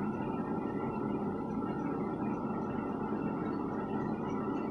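A kitchen appliance running with a steady electrical hum.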